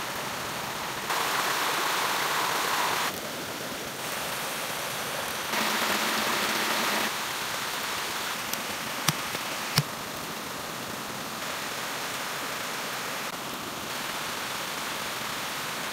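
Steady rushing hiss of jungle ambience that changes level abruptly several times, with two sharp clicks about nine seconds in.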